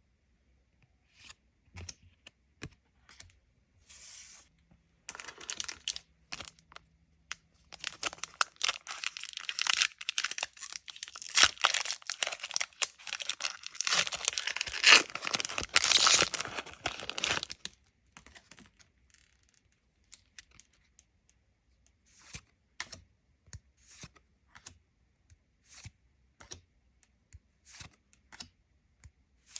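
A foil trading-card booster pack wrapper torn open and crinkled, loudest in the middle. Light scattered clicks and taps of card handling come before and after it.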